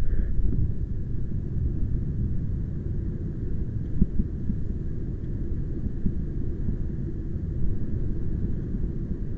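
Strong wind buffeting the microphone: a low, uneven rumble that rises and falls in gusts.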